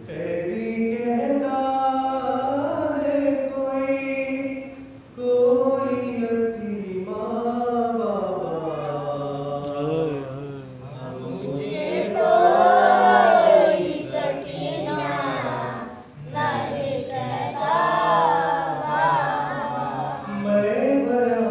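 A man reciting an Urdu noha, a mourning lament, unaccompanied into a microphone in a chant-like melody, in long sung lines with short breaks between them. He gets louder and higher-pitched about halfway through.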